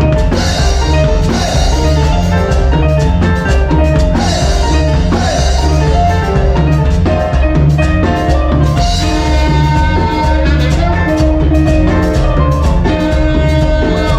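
A cumbia band playing live, with a steady drum and percussion beat over a continuous bass line and melody, picked up by a camera microphone.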